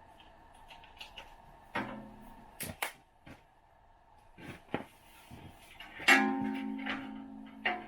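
Sparse acoustic guitar background music: a chord strummed about two seconds in and another about six seconds in, each ringing and dying away, with a few sharp clicks in between.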